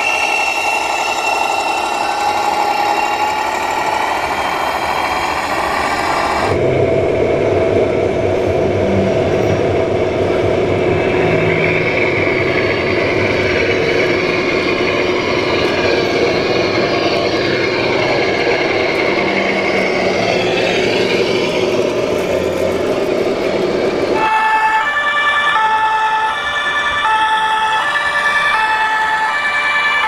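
Radio-controlled model trucks running with a steady mechanical hum that changes at two cuts. Near the end, a model fire engine's two-tone siren sounds, alternating high and low notes over and over.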